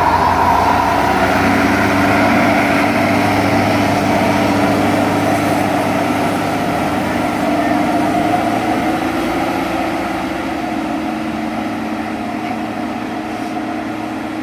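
A big bus's diesel engine pulling hard up a steep climb, running steadily and gradually fading as it moves away.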